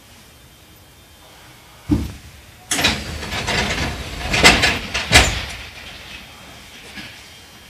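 Passenger doors of a stopped Tokyu 1000 series train opening: a low thump, then a hiss of air lasting about two and a half seconds, with two sharp knocks as the doors reach the end of their travel.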